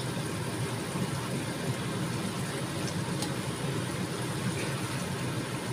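Steady low hum with an even hiss over it from a gas stove burning under a wok of simmering tomato sauce, with a light click of chopsticks against the wok about three seconds in.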